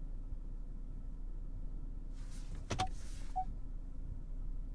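Inside the cabin of a 2017 Ford Escape: a short shuffle and a quick cluster of clicks about two and a half seconds in, as the gear selector is moved from reverse to drive, with two short chimes from the park-assist system. A low steady hum from the idling SUV runs underneath.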